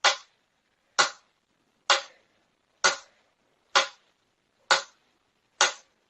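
Seven sharp knocks, evenly spaced about a second apart, each dying away quickly.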